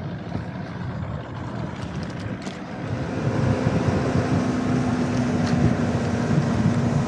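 Suzuki outboard motor driving a fishing boat across the lake, with wind and water rushing past. About three seconds in it gets louder and settles into a steady higher drone as the boat runs at speed.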